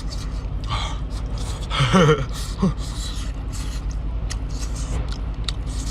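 A person eating, with chewing and lip-smacking clicks and a short voiced sound about two seconds in, over a steady low hum.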